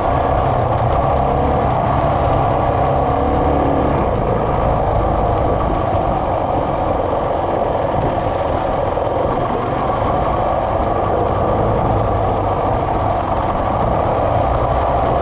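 Dual-sport motorcycle engine running steadily at a cruising pace on a dirt road, heard from the rider's own bike, with wind rumbling on the microphone.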